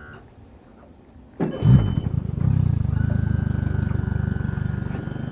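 Outboard motor starting about a second and a half in with a sudden loud catch, then running steadily at idle. From about three seconds in, a thin steady whine from the electric anchor winch runs under the engine as the winch keeps hauling the boat toward its anchor.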